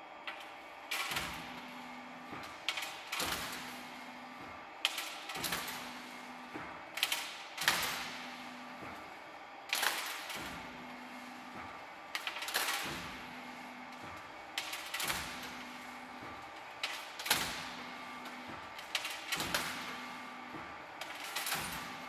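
Aluminium circles handled at a stacking station: a sharp metallic clank about every two seconds, each followed by a short steady hum from the machinery, as the discs are laid one by one onto a stack.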